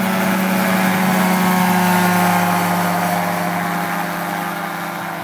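Gyrobee gyrocopter's Rotax engine and pusher propeller running hard through the takeoff run and lift-off: a steady, loud drone. It peaks about two seconds in, then fades and drops slightly in pitch as the aircraft climbs away.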